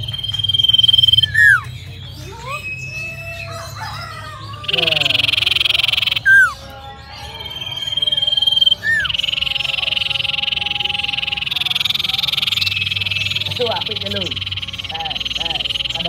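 Common iora singing: long held whistles, a few down-slurred notes, and long stretches of rapid buzzy trilling.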